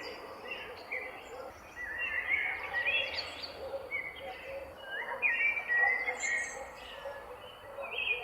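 Mixed birdsong: several birds chirping and singing in short, overlapping phrases, busiest about three and six seconds in, over a steady background hiss of outdoor ambience.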